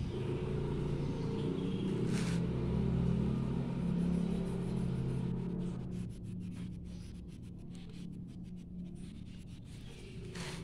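A motor vehicle's engine running in the background, loudest for the first six seconds and then fading away. Light scratchy strokes of an oil pastel colouring on paper can be heard in the later part.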